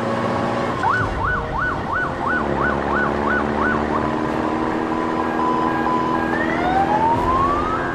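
Siren sound effect warbling rapidly up and down, about eight cycles over three seconds, over a steady engine-like hum. Near the end the engine sound revs up in a long rising whine.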